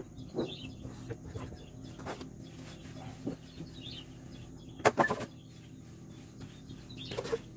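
Handling of wooden sieve trays of mealworm larvae: scattered knocks and scrapes of wood and the rustle of worms being spread by hand, with a sharp double knock about five seconds in. Birds call faintly in the background.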